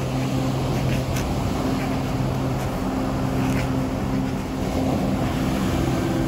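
A steady rushing, rumbling noise over a low, sustained music drone.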